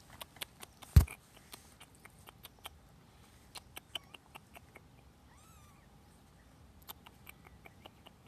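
A kitten gives one short, faint mew about five and a half seconds in. Around it are many scattered small clicks and taps, with one loud thump about a second in.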